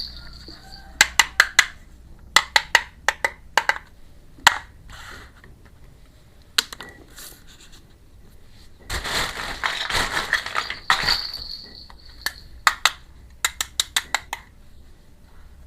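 Miniature plastic toy kitchen pieces being handled during unboxing: quick runs of sharp clicks and taps, with a stretch of crinkling packaging about nine seconds in.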